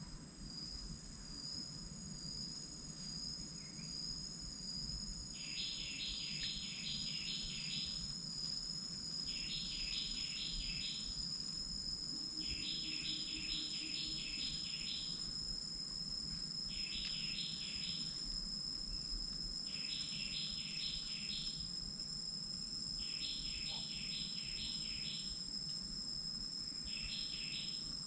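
Night insects calling: a steady high-pitched trill runs throughout, while another insect gives pulsed chirping calls in bursts of one to two seconds, about seven of them, each roughly three seconds apart.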